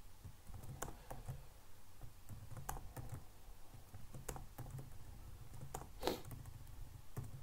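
Computer keyboard keystrokes: scattered, irregular taps while code is edited, the loudest about six seconds in.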